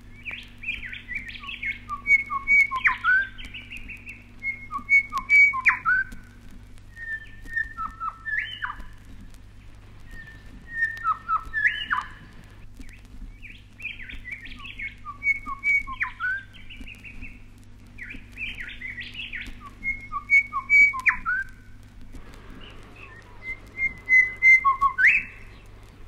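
Grey shrike-thrush (Colluricincla harmonica) singing: seven rich whistled phrases a few seconds apart, each ending in a quick sweeping note, over a faint steady low hum from the old recording.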